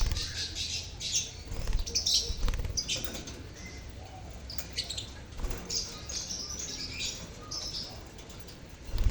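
A colony of lovebirds (Agapornis) chattering with many short, high, shrill chirps overlapping one another, with occasional low thumps.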